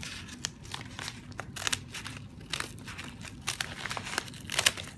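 Scissors cutting across the end of a padded paper mailer envelope: a run of irregular crackling, crunching snips as the blades chew through the paper and padding, loudest near the end.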